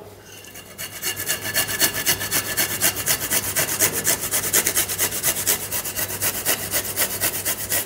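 Garlic being grated by hand on a grater: rapid, even rasping strokes, about eight a second, starting about a second in.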